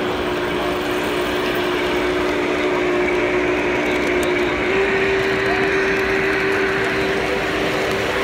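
Large-scale model trains running past on a layout, a steady low motor hum and rolling wheel noise over the hubbub of a crowded exhibition hall; the hum shifts slightly higher about five seconds in.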